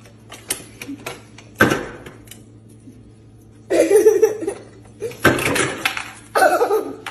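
A puppy's paws and nose clicking and clattering against the plastic paddle of a refrigerator's door water-and-ice dispenser. There are scattered clicks and several short bursts of rattling, the loudest near the middle and towards the end.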